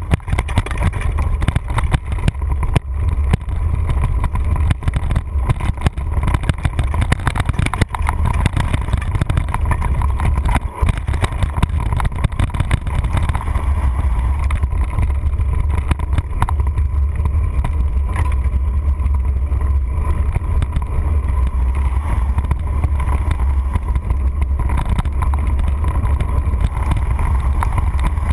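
Wind buffeting the microphone of a camera mounted on a mountain bike's handlebars, a continuous heavy rumble, with frequent rattles and knocks from the bike jolting over the rough dirt trail.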